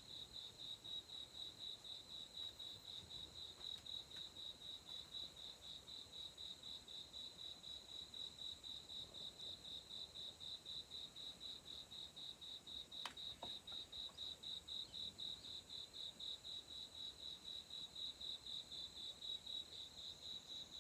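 An insect chirping in a steady, even pulse, several chirps a second, all on one high pitch. There is a single sharp click about 13 seconds in.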